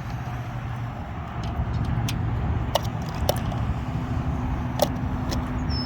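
Steady low hum of vehicle engines and road traffic, with a few sharp clicks scattered through it and a short high chirp near the end.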